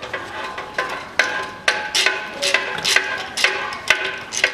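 Ratchet wrench on a long extension clicking in short back-and-forth strokes, about two sharp metallic clicks a second with a brief ring, as a 14 mm bolt on the exhaust manifold is undone.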